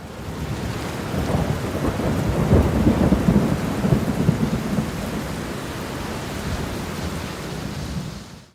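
Thunderstorm: steady rain with thunder rumbling, the rumble loudest a few seconds in and then easing, fading out near the end.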